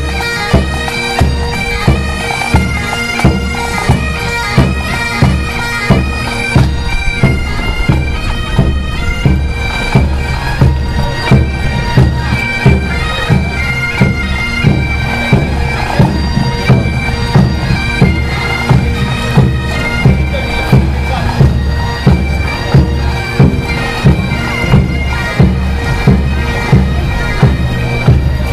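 Pipe band playing a march: bagpipes sounding a melody over their steady drones, with a bass drum beating a regular march beat a little more than once a second.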